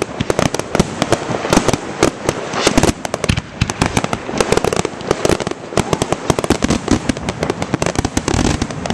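Fireworks display going off in a dense barrage: many sharp bangs and crackling pops in quick, irregular succession.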